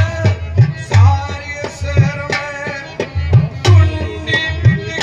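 Instrumental passage of Haryanvi ragini folk music: a hand drum plays a driving, uneven pattern of deep strokes under a sustained melody from a held-note instrument.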